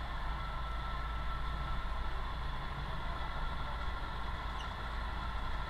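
Fire truck engine running steadily, driving the water pump through its power take-off (PTO). A steady low rumble with no change in level.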